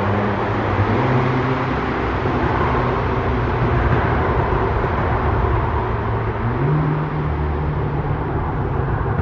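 Volkswagen Golf R (Mk7) engine and exhaust echoing along a road tunnel as the car drives away into the distance, a dense, steady rumble.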